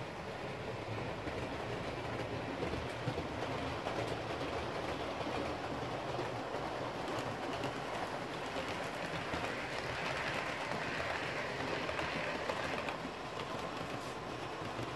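Model railway train running along the layout's track, a steady rolling rumble of the wheels and motor that grows a little louder after the middle and eases off near the end.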